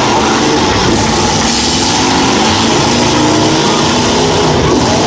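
Several demolition derby cars' engines revving hard together, the pitch rising and falling as they push and ram each other.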